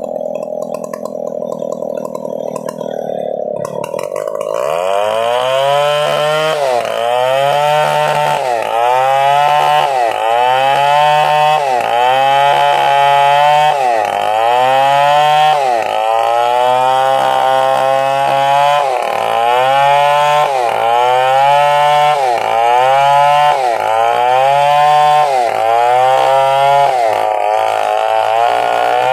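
Stihl chainsaw engine running at a steady, lower pitch for about four seconds, then at full throttle with its pitch rising and dropping about once a second as it rips lengthwise through a coconut palm trunk.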